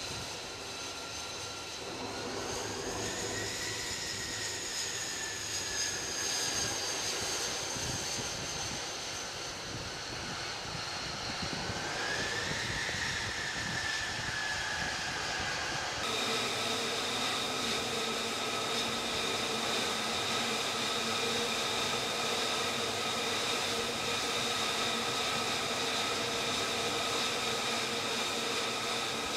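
F-35C's Pratt & Whitney F135 turbofan running on deck with a high whine over a rushing noise. The whine rises in pitch about two seconds in and again about twelve seconds in, easing back after each as the engine is throttled up for taxiing. About sixteen seconds in it changes abruptly to a steady whine.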